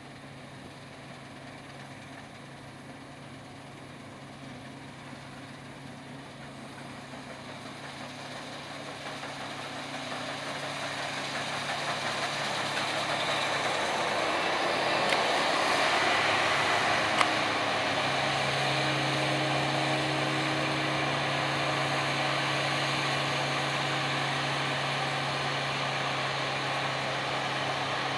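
Diesel engine of harvest machinery drawing closer, growing louder over several seconds, then running steadily close by with a steady low hum.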